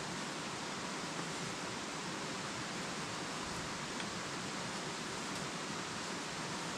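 Steady rushing of a shallow stream running over rocks.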